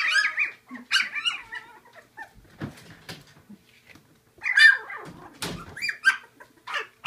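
Young Labradoodle puppies, not yet weaned, whimpering and yipping in short high calls: one burst at the start and another more than halfway through, with a few soft thumps in between.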